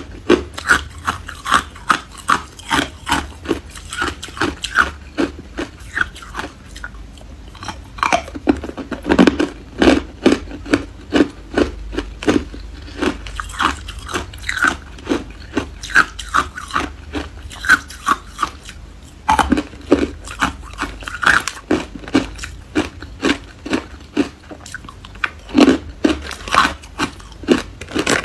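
Hard clear ice cubes being bitten and chewed: a steady run of sharp crunches, several a second.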